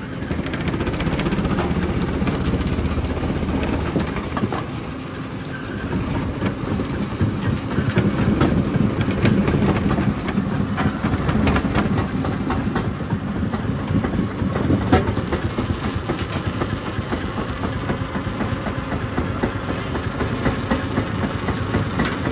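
Jaw crusher running and crushing rock: a steady machine rumble under a dense clatter of stones cracking and knocking in the jaws. It gets louder right at the start, and the knocking grows heavier from about eight seconds in.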